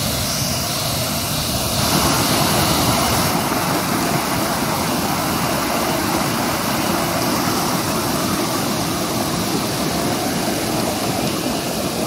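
Steady rushing of water: a waterfall plunging into its pool, then, from about two seconds in, a slightly louder mountain stream tumbling over rocks.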